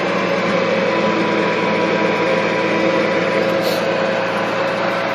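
Farmall 706 tractor engine running at a steady speed while towing a heavy load.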